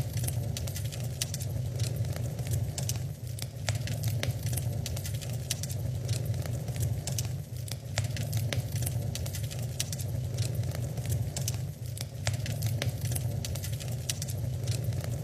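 Wood fire crackling in a fireplace: many irregular sharp snaps and pops over a low, steady rumble of the flames.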